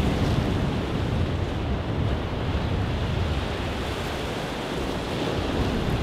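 Lake waves washing in, with wind rumbling on the microphone: a steady rushing noise with a heavy low rumble.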